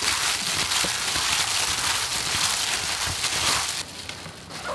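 Gloved hands mixing sliced beef kidney with sauces in a stainless steel bowl: a wet, crackling squelch of the meat with the crinkle of plastic gloves. It drops off sharply a little under four seconds in.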